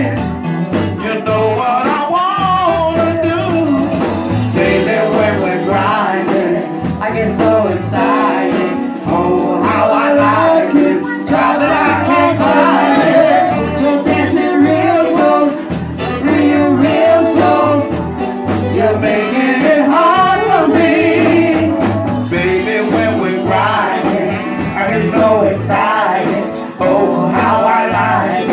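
Live band playing an R&B song, with a singer's voice over a steady beat.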